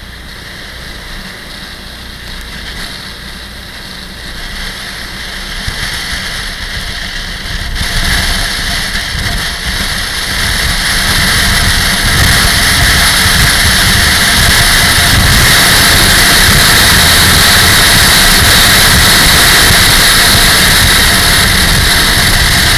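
Motorcycle engine running under way, mixed with rushing wind noise on the microphone. The sound swells about eight seconds in and again near twelve seconds, then holds steady and loud.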